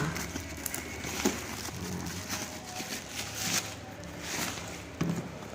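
Intermittent rustling and handling of a parcel's packaging, with a couple of sharp clicks, as the package is opened.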